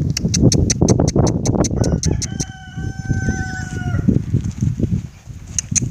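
A rooster crows once, a long held call beginning about two seconds in, with a slight warble near its end. Underneath it run heavy thuds and clicks from a trotting horse's hooves on the dirt.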